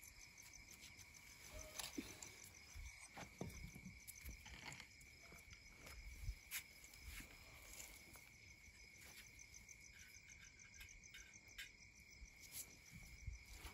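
Faint crickets chirping steadily, with a few light clicks and knocks here and there.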